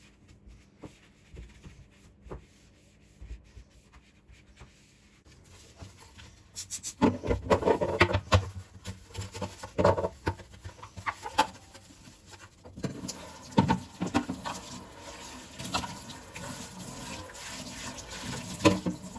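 Kitchen handling sounds: a few light clicks, then containers and dishes knocking and clattering. About two-thirds of the way through, a tap starts running steadily while things are handled under it.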